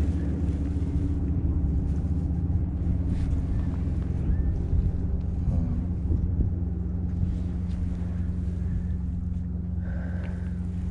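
A motor running steadily with a constant low hum, with a few faint knocks over it.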